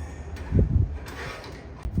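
Dull low thumps, a double one about half a second in and another near the end, with faint scuffing between: handling noise in a workshop.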